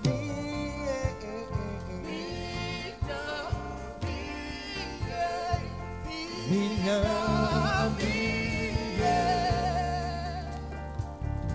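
Live gospel song: a man sings into a microphone over a live band, with held, wavering notes above a steady bass and drums.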